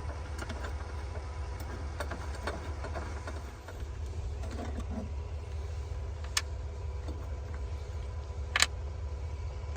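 Light clicks and knocks of a plastic-and-metal battery hold-down bracket being handled in a car's trunk, with a sharper knock about six and a half seconds in and a louder one about eight and a half seconds in, over a steady low hum.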